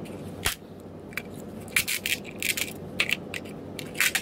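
Hand cutters snipping and crunching at the white plastic strap that holds a rat snap trap to its cardboard packaging: a string of irregular sharp clicks and crunches.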